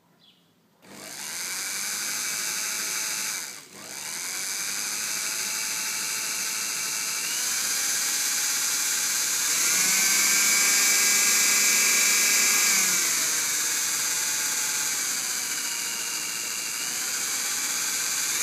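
Sewing machine motor driving a Taig mini lathe's spindle through a toothed belt, running with a whine and hiss. It starts about a second in, cuts out briefly near 4 s, then steps up in speed twice and back down again as the foot pedal changes speed.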